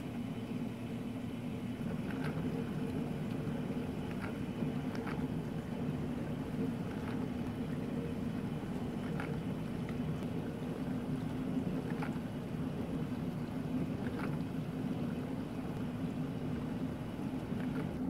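Bosch Ascenta dishwasher running mid-way through an Express Wash cycle: a steady low hum from the wash pump and water circulating in the tub, with faint light ticks every second or two.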